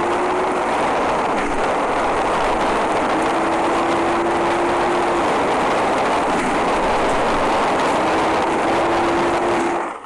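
Banded ground cuckoo giving long, low, level hoots of about two seconds each, one about three seconds in and another near the end, over a loud steady hiss.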